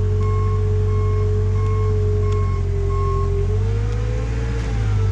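A heavy machine's engine running under load while its backup alarm beeps steadily, about once every 0.7 seconds. The beeping stops after about three seconds, and then the engine note shifts and wavers.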